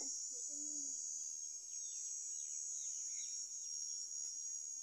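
Steady high-pitched chorus of crickets, with a few faint bird chirps in the middle.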